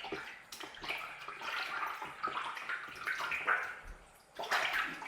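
Sockeye salmon splashing in water, in uneven surges with a short lull about four seconds in.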